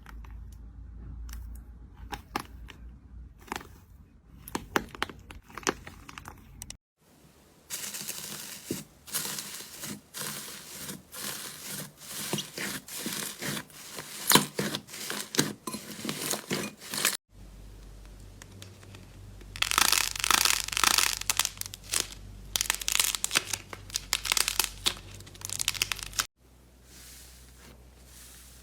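Slime being pressed, squeezed and pulled by hand, with dense sticky crackling, popping and tearing sounds. It comes as several separate clips, with short silent cuts between them.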